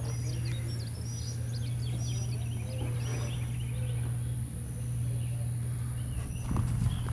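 Birds chirping over a steady low hum.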